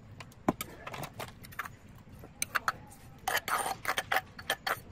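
Metal spoon knocking and scraping against the inside of a mortar while scooping out pounded papaya salad: a run of irregular clicks and short scrapes, busier in the second half.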